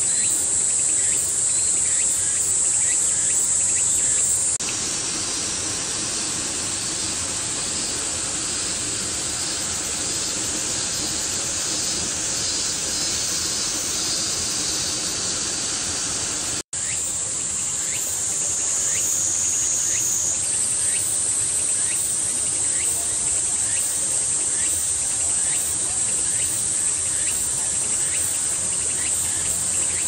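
Insects chirring in a steady high-pitched chorus. The chorus drops slightly in level about four and a half seconds in and cuts out for an instant near seventeen seconds.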